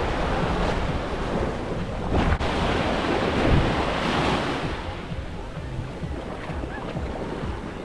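Wind buffeting the microphone over the wash of ocean waves, swelling about halfway through and easing off toward the end.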